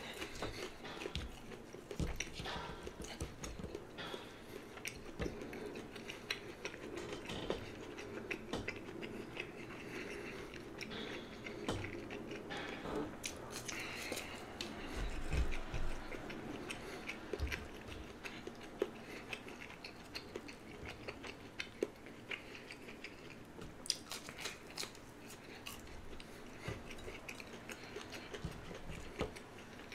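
A person biting and chewing crispy fried chicken nuggets, with many small irregular crunches and clicks.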